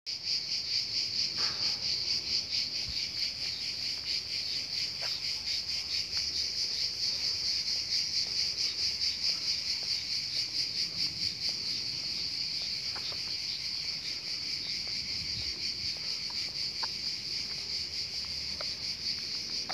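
A dense chorus of cicadas: a continuous high, rapidly pulsing buzz, with a few faint clicks now and then.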